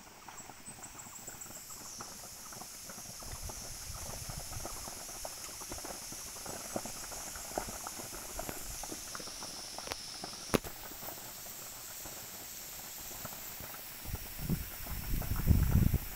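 Distant crackling and popping of a hillside slash-and-burn fire: many small irregular snaps, one sharper crack about ten seconds in, over a steady high hiss. A low gusting rumble rises near the end.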